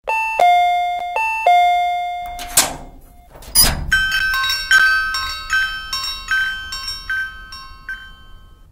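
Two-tone ding-dong doorbell chime rung twice, high note then low. Then come two short, noisy swishes about a second apart, followed by a brighter bell ringing about once every 0.8 s and dying away.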